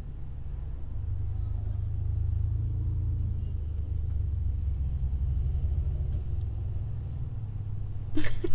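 Low, steady car engine rumble heard from inside a car's cabin, growing a little stronger in the middle. A short, louder burst of sharp sounds comes just before the end.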